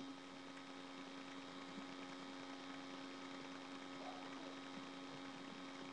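Steady electrical hum with a constant hiss underneath, the self-noise of a webcam's microphone.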